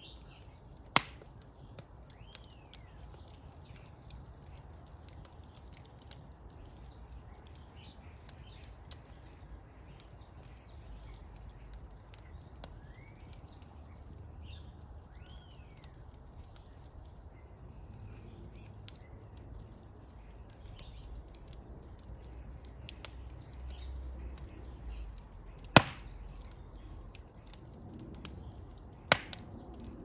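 Wood logs burning in an open brick fireplace: a soft crackle with faint ticking, broken by three loud, sharp pops, one about a second in and two near the end.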